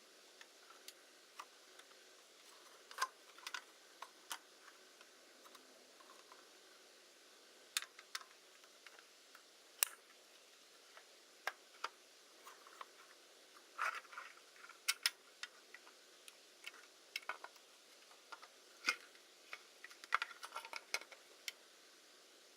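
Irregular light clicks and taps of small parts and tools being handled, some single and some in quick clusters.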